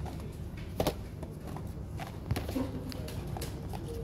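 A few light knocks and taps as small cardboard snack boxes are handled and put into a plastic shopping basket, over a steady background murmur.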